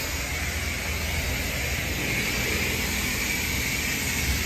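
Car driving along: steady road and wind noise with a low rumble.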